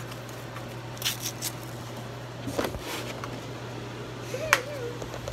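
Scattered clicks and rubbing from a handheld phone being moved about and brushed by a sleeve, over a steady low hum. A brief voice sound comes near the end.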